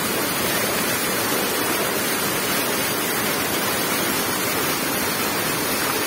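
Samtsvera waterfall on the Dzusa River cascading over rock ledges into a pool: a steady, unbroken rush of falling water.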